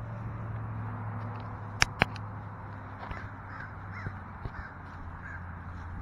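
A flock of crows cawing, a string of short calls in the middle and later part. Two sharp clicks just before two seconds in stand out as the loudest sounds, over a steady low hum.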